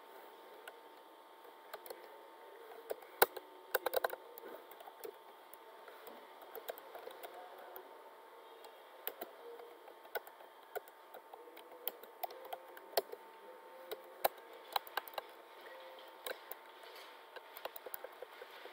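Typing on a computer keyboard: irregular keystroke clicks, with quick runs of keys about three to four seconds in and again near fifteen seconds, over a faint steady hum.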